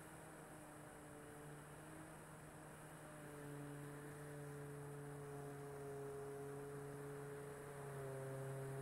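Electric motor and propeller of an RC Corsair F4U model plane humming in flight, a steady tone with overtones. It steps up in pitch and loudness about three seconds in and shifts again near the end.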